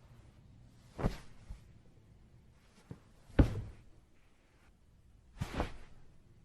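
Body-fall sound effects: three separate heavy thuds about two seconds apart, each with a smaller knock or scuff beside it, the middle one the loudest.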